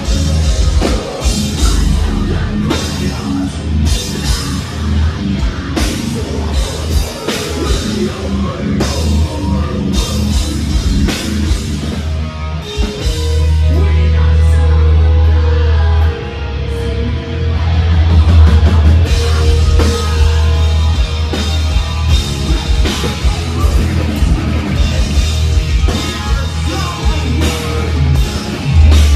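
Metal band playing live: fast, dense drumming with distorted guitars and heavy low notes, some held for a few seconds around the middle.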